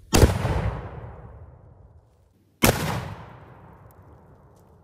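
Black powder cannon firing a solid PLA 37 mm round: a sharp blast with a long rumbling tail that dies away over about two seconds, heard twice, about two and a half seconds apart.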